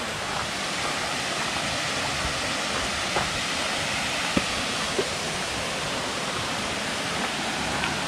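Steady rushing hiss of a waterfall, with a few faint short sounds on top.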